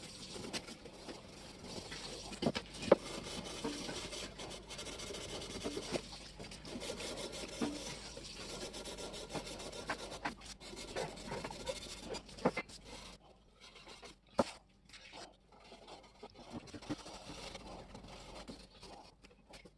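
Hand rubbing and scraping on a hard part, a continuous rasp with scattered sharp clicks and knocks. About two-thirds of the way in, the steady rubbing stops, leaving only occasional taps and clicks.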